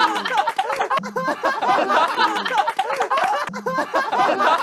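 Several young men laughing hard together, loud and overlapping.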